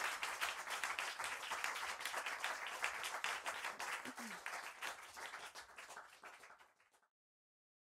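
A small audience applauding, many hands clapping, dying away and cutting to silence near the end.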